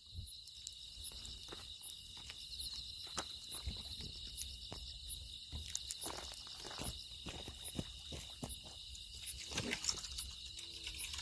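Night insects, crickets among them, chirping steadily in a high even chorus, with scattered soft knocks and rustles close by. Near the end a low animal call repeats a few times.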